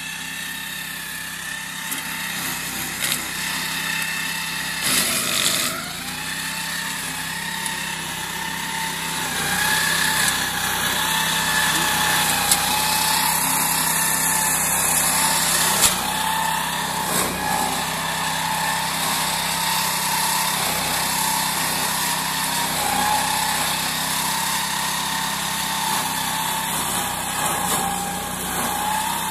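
Engine-driven meadow mower with a chain shredder, running steadily under test, with a constant high whine over the engine noise.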